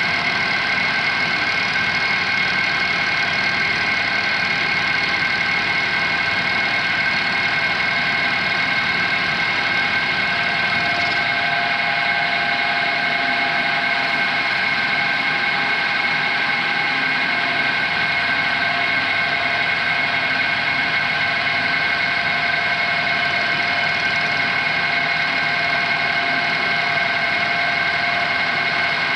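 Vertical milling machine running steadily with a 3/8-inch end mill cutting a slot in a faceplate on a rotary table, a constant mechanical whine.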